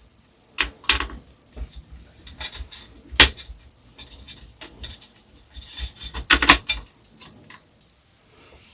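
Hands working on a small metal computer case: scattered sharp clicks and knocks, the loudest about a second in, about three seconds in and past six seconds in, with rubbing and scraping between, as the case is handled and its front panel worked on.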